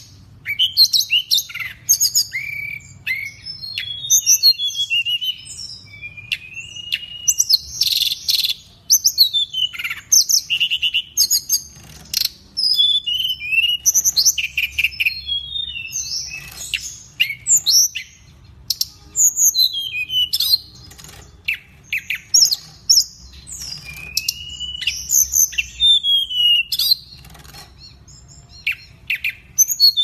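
Caged hill blue flycatcher (tledekan gunung) in full song: a rapid, varied run of high whistled phrases, trills and falling notes, with only short pauses between them.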